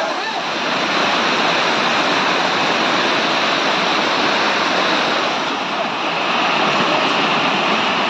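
Waterfall rushing: a steady, loud wash of falling water.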